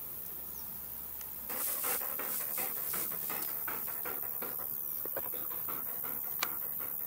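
Dog panting quickly and rhythmically close by, about four or five breaths a second, starting about a second and a half in and easing off later, with a single sharp click near the end.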